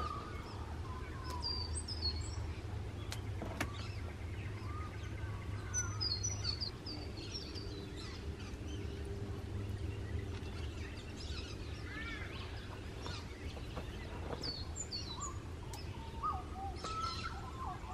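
Wild birds calling in short, high chirps that come in scattered groups, with a few lower calls near the end, over a steady low background rumble. A few faint clicks are heard.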